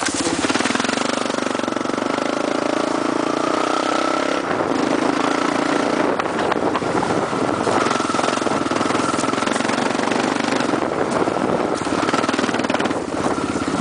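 Quad bike (ATV) engine running steadily as it drives over rough grassland, its pitch shifting slightly as the throttle changes.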